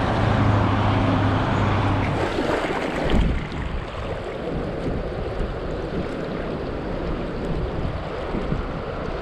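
Traffic on the interstate highway: a steady hum of passing vehicles. About three seconds in it cuts abruptly to the steady rush of a shallow mountain creek flowing over rocks.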